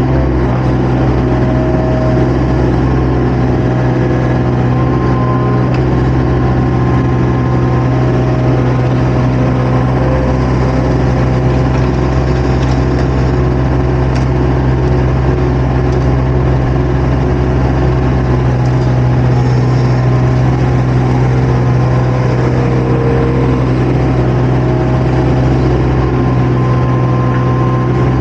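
Engine of a compact earthmoving machine running steadily under constant load, heard close up from the operator's seat.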